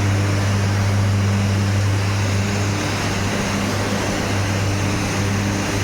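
Electric arc ladle furnace running: a loud, steady deep hum with a couple of higher overtones over a dense rushing noise from the arcs. The hum weakens slightly midway and then comes back.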